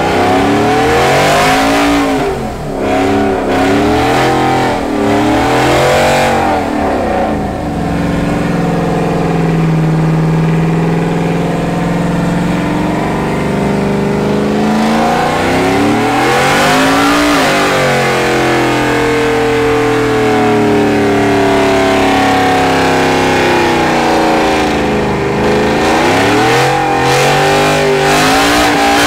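Chevrolet Silverado pickup doing a burnout, its engine revving up and down over and over and held steady at high revs for several seconds at a time while the rear tyres spin.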